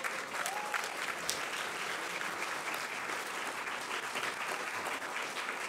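Audience applauding: many people clapping at a steady, even level.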